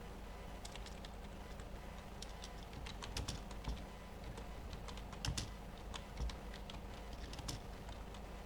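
Typing on a computer keyboard: irregular keystrokes, a few of them louder around the middle.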